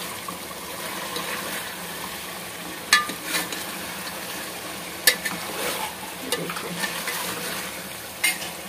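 Chicken pieces sizzling steadily as they fry in oil, browned to the point where the oil separates, while a steel spoon stirs them around a metal pot. The spoon knocks sharply against the pot about three times.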